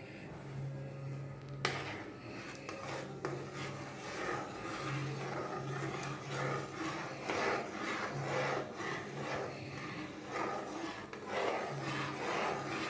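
Steel slotted spatula stirring and scraping semolina into simmering water in a non-stick kadai, a run of short rough scraping strokes as the semolina is added a little at a time and stirred so it does not form lumps.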